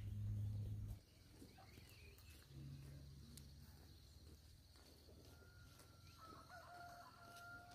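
Faint farmyard chickens, with a rooster crowing in one long call through the last few seconds. A brief low rumble at the very start is louder than the rest.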